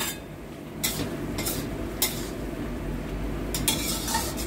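Spatula stirring chicken wings and long beans in a stainless steel wok, with several short scraping strokes against the metal. A steady sizzle of simmering sauce runs underneath.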